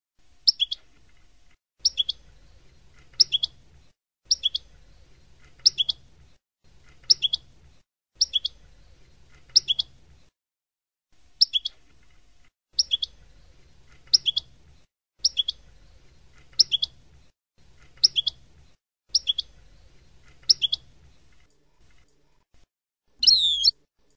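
European goldfinch repeating a short, sharp, high call note about once every second and a half, each a quick downward sweep; near the end it gives one longer, wavering note.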